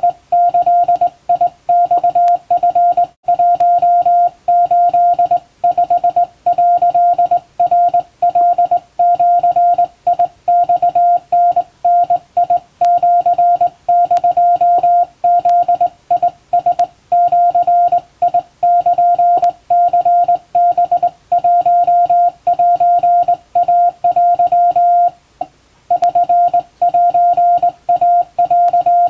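Japanese (wabun) Morse code sent by hand on a straight telegraph key: a steady mid-pitched tone keyed on and off in dots and dashes, with one longer pause about 25 seconds in.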